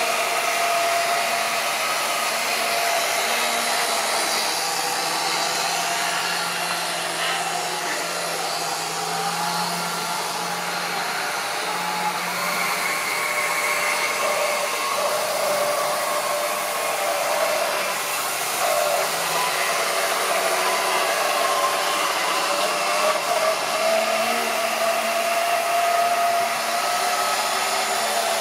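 Model railway train running on the track: a steady whirring of its small electric motor and wheels on the rails, the pitch wavering slightly.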